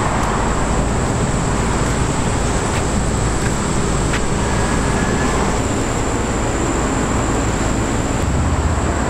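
Steady traffic noise, with car engines running in the drive-thru lane.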